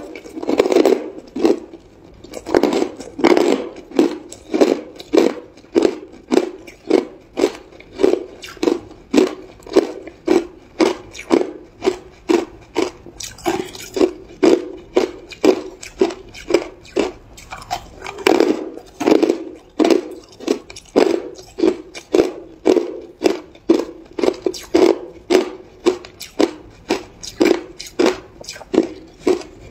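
Hard ice chunks being chewed with the mouth closed: a steady run of crunches, about two a second.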